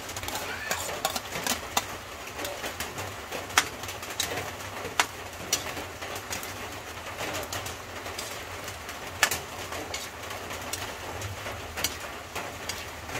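Metal spatula scraping and knocking against a wok as sliced hotdogs are tipped into thick spaghetti sauce and stirred through, with several sharp clacks, the loudest about three and a half, five and nine seconds in. A bird coos in the background.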